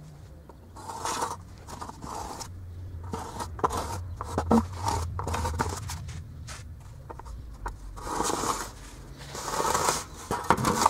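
Metal screed bar drawn back and forth over a sand bed, scraping and swishing in repeated strokes as the sand is levelled for paving slabs, the loudest strokes near the end.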